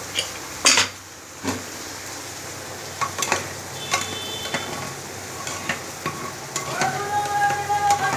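Spatula stirring and scraping food as it fries and sizzles in a pan, with scattered knocks of the utensil against the pan. Near the end a steady pitched tone starts.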